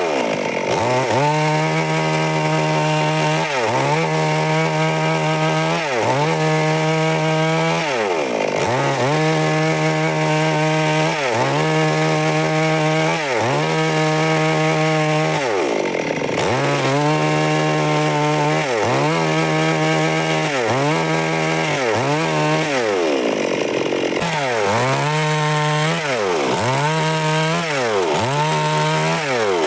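Chainsaw engine running at high speed. Its pitch drops and climbs back every two seconds or so, more often near the end.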